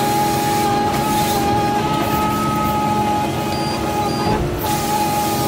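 Forestry harvester running while its head feeds and delimbs a conifer log: a steady machine rumble with a constant high whine, briefly breaking off about four and a half seconds in.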